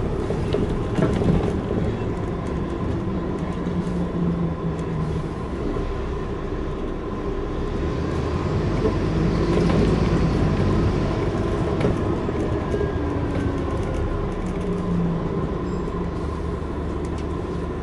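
Inside a Scania N230UD Enviro400 double-decker bus on the move: its five-cylinder diesel engine drones steadily, with light rattles from the body and a thin steady whine.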